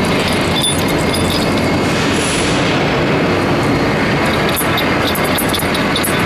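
Steady loud factory machinery noise, with scattered light metallic clicks as steel spacers are handled on a roll forming machine's roller shaft.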